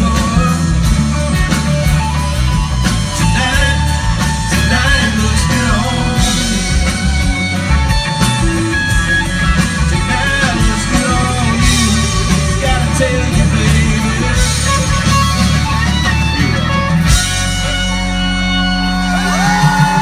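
Live country band playing loud, with strummed acoustic guitars, electric guitar, bass and drums, cymbal crashes every few seconds; near the end the band settles into a held chord as the song closes.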